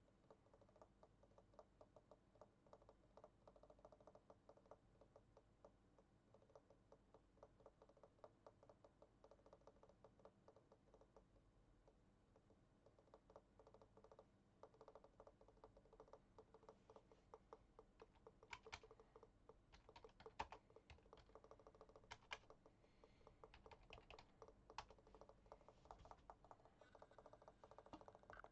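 Faint typing on a computer keyboard: a quick, steady run of key clicks, with a few sharper, louder keystrokes in the second half.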